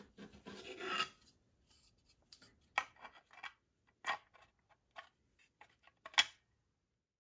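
Clear plastic tube rubbing as it slides through a 3D-printed block and its halved O-rings, building over the first second, followed by a handful of short sharp clicks and taps of the printed plastic parts being taken apart and handled.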